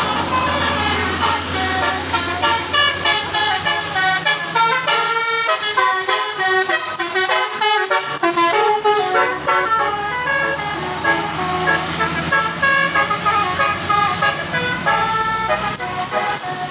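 Bus telolet air horn (Basuri type) playing a quick melody of stepped, held notes over the low hum of the bus engine, which fades in the middle and comes back near the end.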